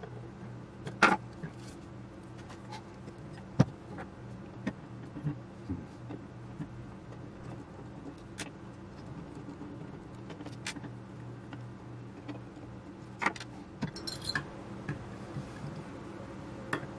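Irregular metallic clicks, taps and knocks as the parts of an old gyro unit are handled, turned over and set down on a desk. The loudest knocks come about a second in and at about three and a half seconds, with a cluster of clicks near the end, all over a low steady hum.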